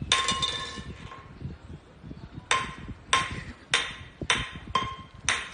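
A hard object struck over and over, each strike ringing briefly: one hit at the start, then a regular run of strikes about every 0.6 s from roughly halfway through.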